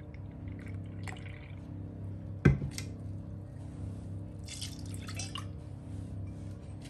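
Milk poured from a glass into a stainless steel saucepan, splashing for about a second just past the middle. A single sharp knock comes a couple of seconds earlier, and a low steady hum runs underneath.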